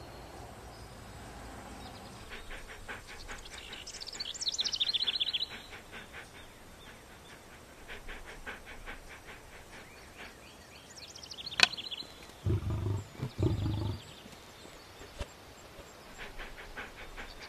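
Birds singing, with repeated falling high chirps and fast trills, and two short low rumbles about three-quarters of the way through.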